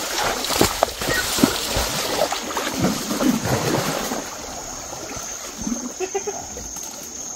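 Water splashing and sloshing as animals wade through deep floodwater, busiest in the first four seconds and quieter after, with a steady high insect tone underneath.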